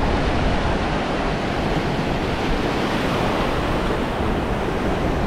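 Ocean surf breaking and washing through shallow water in a steady rush, with wind rumbling on the microphone.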